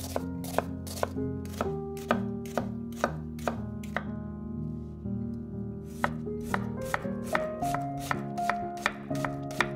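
Chef's knife chopping an onion on a wooden cutting board: sharp, even strikes about two a second, a pause of about two seconds midway, then quicker chopping as the onion is diced.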